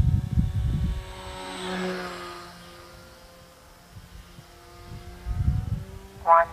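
Micro RC pattern plane's motor and propeller whining as it flies overhead, the pitch drifting slightly up and down as it manoeuvres and passes.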